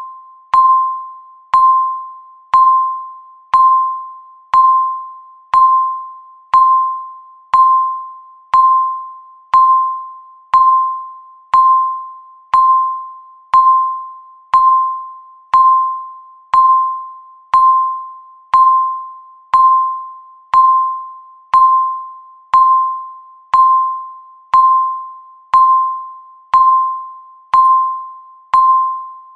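Countdown timer beeping once a second: a short electronic beep at about 1 kHz, each one sharp at the start and fading quickly, evenly spaced.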